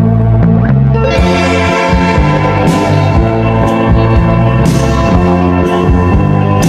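Background music: a sustained organ-like chord with a bass line and a steady beat, loud throughout.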